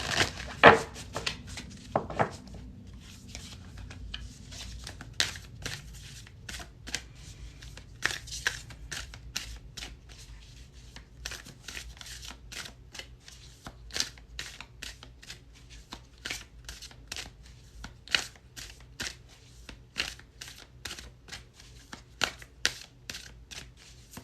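A deck of tarot cards being shuffled by hand, giving a steady run of short card slaps and riffles, about two or three a second. Louder knocks come in the first two seconds.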